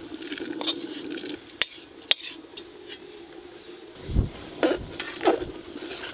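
Metal spatula scraping and tapping against a metal wok as spiced rice is emptied into an aluminium cooking pot, with a few sharp clinks. Near the end a ladle knocks against the pot as the khichuri is stirred.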